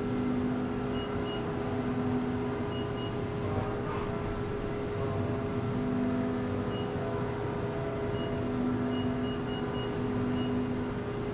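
ProtoTRAK-controlled CNC knee mill humming steadily, with a lower motor hum cutting in and out in short spells. Short high beeps come several times, often in pairs, as keys on its control are pressed.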